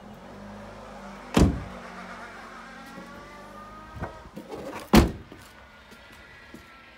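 Two sharp thumps from parts of a small hatchback's cabin being shut, one about a second and a half in and a louder one about five seconds in, with a smaller knock just before the second.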